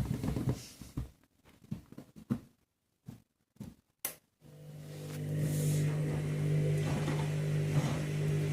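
Candy washing machine, with a few faint knocks, then a steady electric motor hum starting about four and a half seconds in and holding level.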